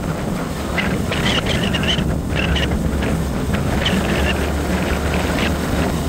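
Steady low road rumble and wind noise from a moving vehicle, with short higher-pitched sounds now and then.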